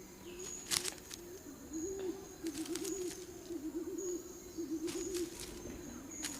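A bird's low, wavering warbling call, strongest through the middle, broken by several sharp crackling snaps like twigs and dry material being handled, over a thin high insect-like tone that comes and goes.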